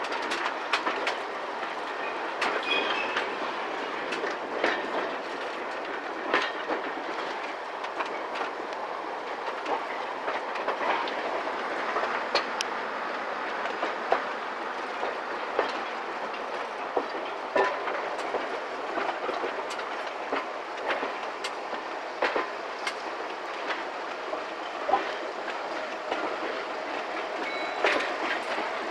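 Railway carriage running along jointed track: a steady rolling rumble with irregular sharp clicks of the wheels over rail joints and pointwork.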